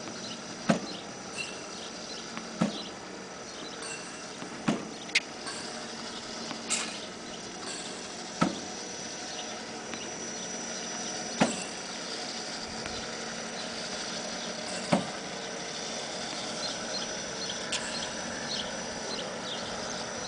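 Home-built tennis ball machine launching balls fed into it by hand: a sharp pop each time a ball is shot out, about eight at irregular intervals of one to three seconds, most of them in the first part. Between the shots the machine runs with a steady hum.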